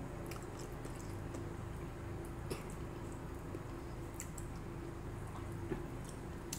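Eating sounds at close range: a person chewing with the mouth closed, with scattered small wet clicks, and fingers working rice and milkfish on a plastic plate. A steady low hum runs underneath.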